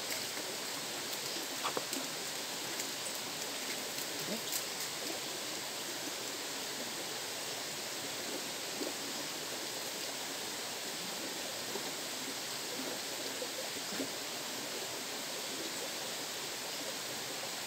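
Steady rush of flowing river water, with a few faint clicks and knocks.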